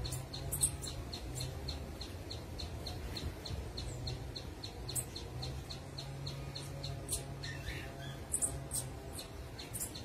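Orange-headed tanager (saí-canário) calling: short, high chip notes repeated evenly at about three a second, with a few sharper, higher notes in between.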